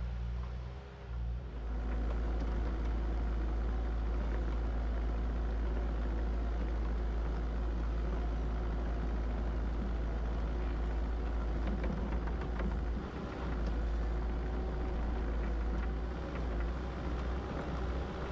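Bobcat 435 compact excavator's diesel engine running steadily, growing louder about a second and a half in, with a few faint knocks.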